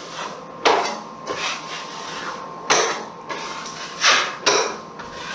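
Steel taping knife scraping joint compound against a metal mud pan and across a drywall seam, in four quick strokes that each start sharply and trail off.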